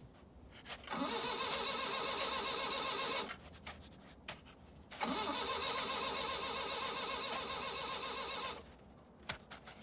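A van's starter motor cranking the engine in two long tries, each over two seconds, with a pause between them. The engine does not catch: the van won't start.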